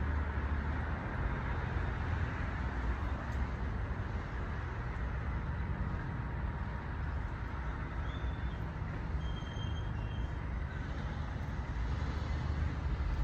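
Steady rushing outdoor noise with a low rumble and no distinct events; a few faint short high-pitched tones about eight to ten seconds in.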